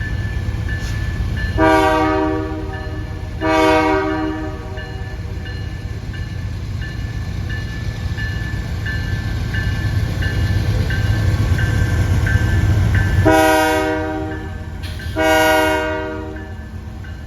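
Diesel locomotive air horn on a southbound manifest freight led by Canadian Pacific 9770, sounding four blasts of about a second each in two pairs, over the heavy low rumble of the passing locomotives, which drops off sharply shortly before the third blast. A faint high ding repeats steadily underneath.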